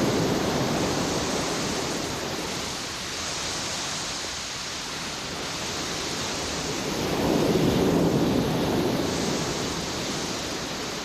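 Sea surf washing onto a beach, with wind: a steady rush that swells twice, just at the start and again about eight seconds in.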